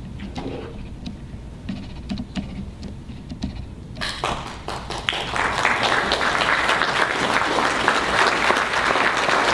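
Quiet room murmur with a few small clicks, then a banquet audience breaks into applause about four seconds in, swelling within a second into steady clapping.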